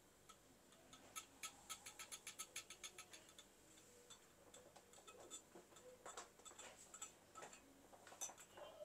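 Faint rhythmic ticking, about five or six clicks a second for a couple of seconds, then scattered clicks: a handheld battery whisk mixer tapping against a glass beaker as it stirs perfume oil into ethanol.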